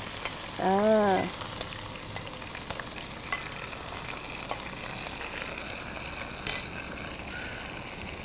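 Thinly sliced beef sizzling steadily in hot oil with bruised lemongrass in a frying pan, just after it has gone in. Occasional clicks of a wooden spatula against the pan, with a brief hum of a voice about a second in.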